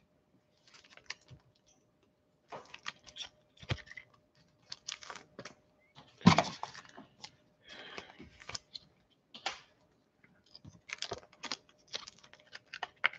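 Trading cards, plastic card holders and foil pack wrappers being handled: irregular clicks, snaps and crinkles, the loudest about six seconds in, over a faint steady hum.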